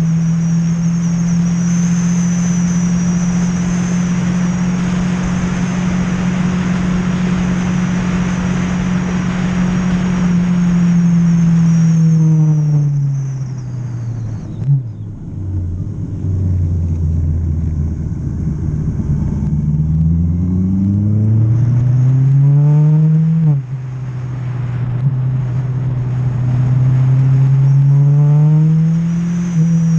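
Yamaha R1 sportbike's inline-four engine at high revs, heard from onboard with heavy wind rush on the microphone. A little under halfway in, the revs fall steeply as the bike brakes and changes down for a corner, stay low for a few seconds, then climb hard as it accelerates out, with a sudden dip at an upshift about two thirds in and another climb toward the end.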